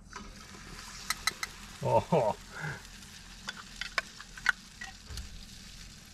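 Coconut cream sizzling in a hot frying pan on a portable gas stove as it is poured in and worked, with scattered sharp clicks and taps against the pan. A brief voice-like sound comes about two seconds in.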